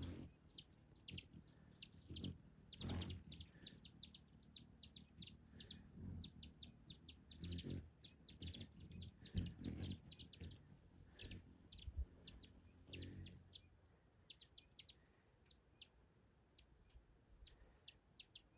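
Birds chirping in rapid, short, high chips. A louder, steady, high-pitched buzz comes twice, briefly around 11 seconds in and for longer around 13 seconds, then the chirping thins out near the end.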